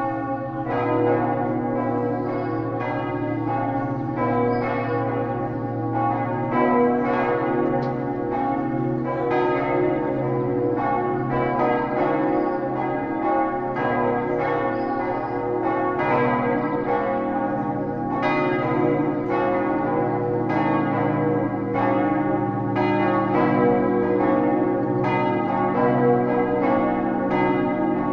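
Several church bells of the Lourdes basilica tower ringing together for mass, a continuous overlapping run of strikes on different pitches, each stroke ringing on into the next.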